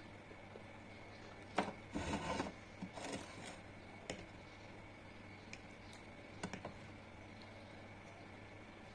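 Close-miked mukbang eating and food-handling sounds: a sharp click and a short crackly burst about two seconds in, another burst a second later, then a few scattered clicks over a low steady hum.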